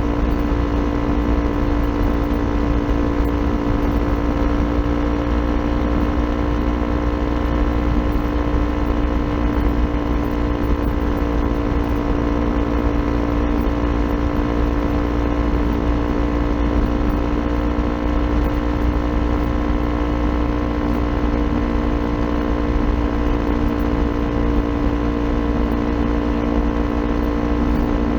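Kawasaki Ninja 400 parallel-twin engine through an aftermarket Akrapovic exhaust, running at steady revs while cruising, its engine note holding one pitch with no revving.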